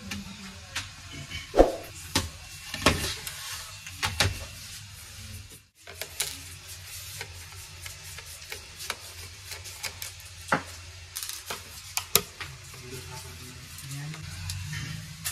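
Scattered small clicks and taps of a screwdriver turning the bottom-cover screws of an HP Pavilion laptop, with knocks of the plastic case being handled, over a low steady hum. The case is being opened to reach the battery.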